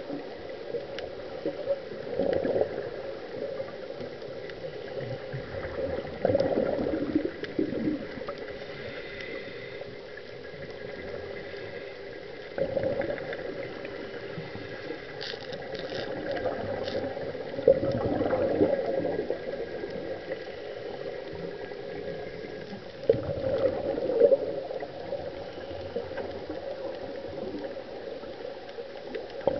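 Scuba regulator breathing underwater: bursts of exhaled bubbles gurgling every few seconds over a steady watery hiss, with a few short clicks about halfway through.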